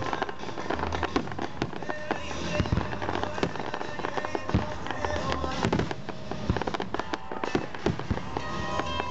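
Aerial fireworks bursting in a dense, continuous series of sharp pops and bangs, with deeper booms from shells now and then. Music plays underneath.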